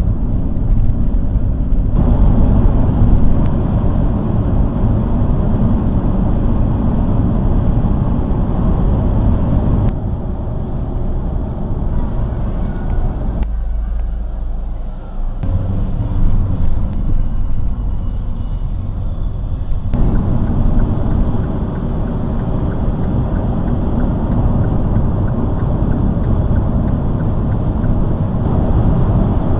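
Car road and engine noise heard from inside the cabin: a steady low rumble that changes abruptly several times. It drops to a quieter hum for a couple of seconds in the middle, while crawling in town traffic.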